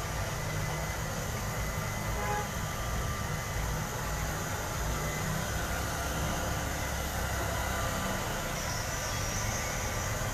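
Handheld hair dryer running steadily, a constant rush of blown air with a low motor hum and a faint whine.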